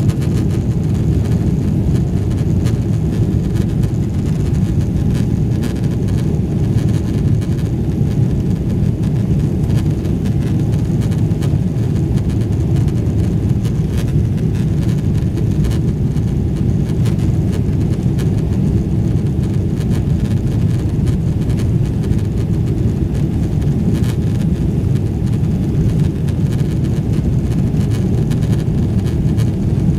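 Steady, loud low-pitched cabin noise of a Boeing 777-300ER's GE90-115B engines at high power during takeoff, with a few faint clicks.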